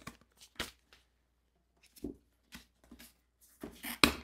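Cardboard shipping box being opened by hand: scattered short rustles and taps of the flaps, with a sharper tap about four seconds in.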